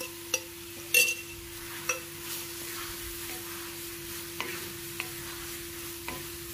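Wooden spatula stirring boiled potato pieces into sizzling tomato-masala paste in a metal kadhai, with sharp knocks of the spatula against the pan, the loudest about a second in. A steady low hum runs underneath.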